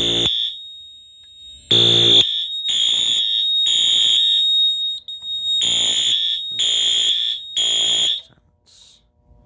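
Wheelock AS fire alarm horns sounding in the temporal-three pattern, the standard evacuation signal: three short blasts, a pause of about a second and a half, then three more. The horns stop a little before the end, followed by a brief faint click.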